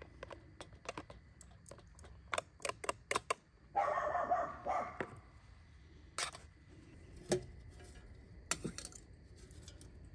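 Metal spoon and lids clinking and scraping against titanium camp pots, a run of sharp ticks, with a dog barking in a short burst about four seconds in.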